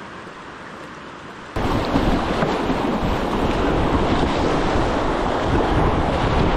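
A low steady hiss, then from about a second and a half in, loud wind buffeting the microphone over rushing river water as the boat moves downstream.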